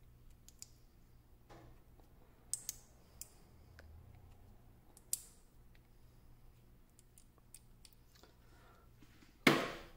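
Small metal 18650 cells and little magnets clicking together as they are handled, a few sharp clicks spread out, with one much louder clack near the end.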